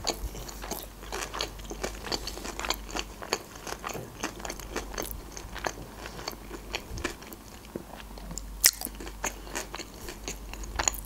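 Close-miked chewing of a large mouthful of sushi roll, a steady run of small wet clicks and crunches, with one sharper click about eight and a half seconds in.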